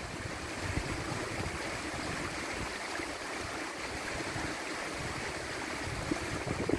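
Mountain stream rushing steadily, with irregular low buffets of wind on the microphone.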